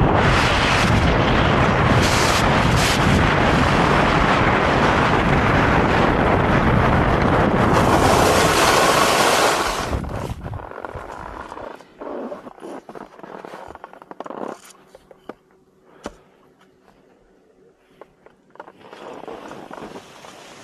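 Heavy wind buffeting on the microphone of a 360 camera carried by a skier running fast downhill, mixed with skis hissing over the snow. About ten seconds in it drops away to scattered scrapes and clicks of skis on snow as the skier slows, then goes much quieter as they come to a stop.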